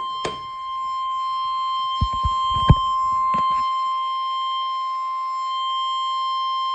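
NOAA Weather Radio 1050 Hz alert tone: one steady, unbroken tone announcing an emergency broadcast, here a severe thunderstorm watch. A few short low thumps sound about two to three and a half seconds in.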